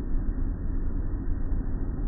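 Automatic car wash heard from inside the car: water from the overhead arch sheeting onto the windshield and the wash equipment running, a steady low rumble.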